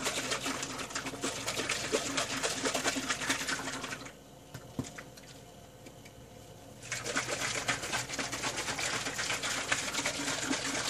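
Borax solution sloshing and rattling in a plastic bottle shaken rapidly by hand to dissolve the borax. The shaking stops for about three seconds in the middle, then starts again.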